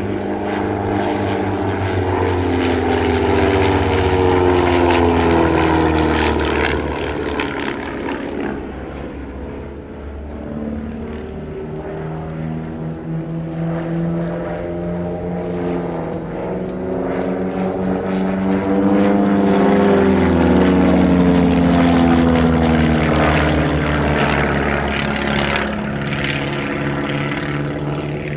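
Piston engines and propellers of a Van's RV-7 and RV-8 flying aerobatics overhead, the engine pitch gliding up and down as they manoeuvre and pass. It swells loudest twice, a few seconds in and again past the middle.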